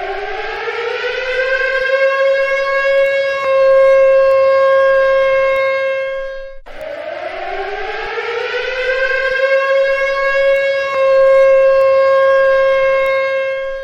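Civil defense siren winding up in pitch over a few seconds and then holding a steady tone, sounding an attack warning. About halfway through it cuts off abruptly and starts over with the same rise and steady hold, cutting off again at the end.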